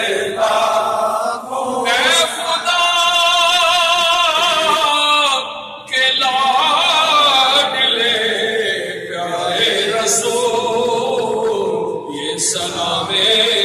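A man chanting a devotional Islamic recitation into a microphone, sung in long, wavering held notes with short breath pauses about halfway and near the end.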